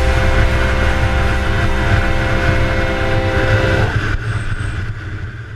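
Moped engine running at a steady high speed under the rider, with wind rumble on the helmet-mounted microphone; the engine note drops away about four seconds in and the sound fades out.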